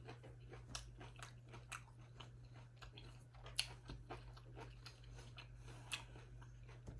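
Faint, close-up biting and chewing of a whole unpeeled mango, skin on: scattered small crunches and wet clicks over a steady low hum.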